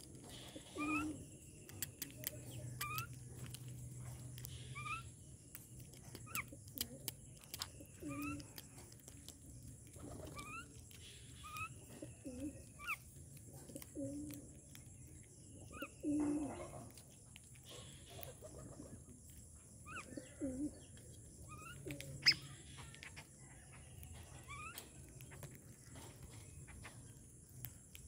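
Birds feeding on scattered grain: short call notes repeated every second or two, low cooing notes, and many sharp ticks of beaks pecking on the hard surface, one much louder tick about two-thirds of the way through.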